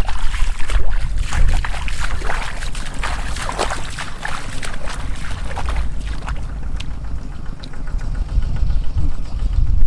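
Bare feet wading and splashing through shallow muddy water, in irregular sloshing steps over a low rumble. Near the end, hands slosh in the water while feeling through the mud.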